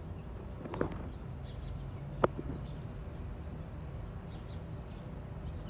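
Quiet garden background: faint short bird chirps over a steady high hum and low rumble, with one sharp click a little over two seconds in.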